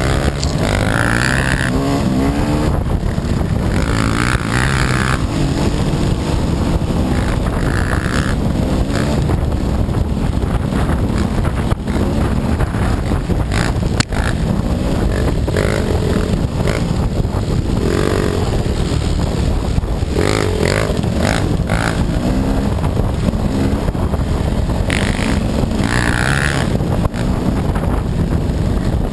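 Gas Gas dirt bike engine running while ridden along a trail, its note rising and falling with the throttle. A single sharp knock comes about halfway through.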